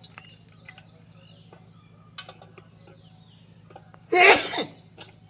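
Loose saw chain clicking faintly as it is worked around a long Husqvarna chainsaw bar by hand, with a loud, short burst of a person's voice about four seconds in.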